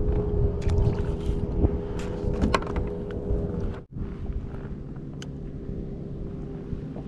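Wind rumbling on the microphone over a steady motor hum from a boat, with a few sharp clicks and rattles of the angler handling the fish and tackle in the first few seconds and once more later.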